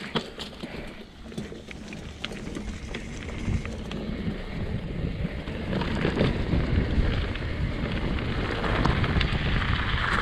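Mountain bike riding down a dirt trail: tyres running over dirt, with clicks and rattles from the bike over bumps, and wind rushing on the microphone. The noise grows louder about six seconds in as the trail opens out.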